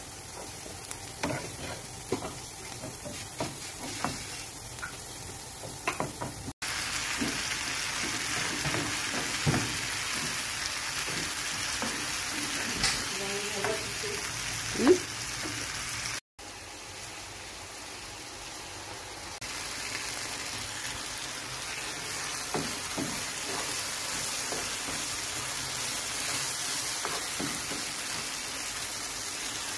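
Chopped red onion and then tomatoes sizzling in oil in a nonstick frying pan, stirred with a wooden spatula that knocks and scrapes against the pan. The sizzle is a steady hiss that turns louder about six and a half seconds in, with sharp spatula knocks in the first few seconds.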